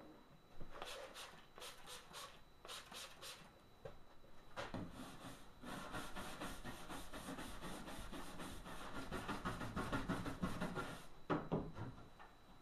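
Stiff bristle hand brush scrubbing a painted wooden cabinet door with a baking-soda-and-water mix. A few separate strokes come first, then steady rapid back-and-forth scrubbing from about four seconds in until about eleven seconds.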